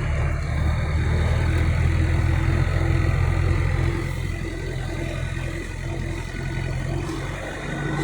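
A vehicle engine running steadily with a low hum, easing off a little about four seconds in.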